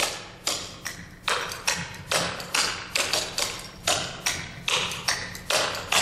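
Clogging shoes' metal taps striking a wooden dance floor in a steady rhythm of sharp clicks, about two to three a second, as the Charleston clogging step is danced.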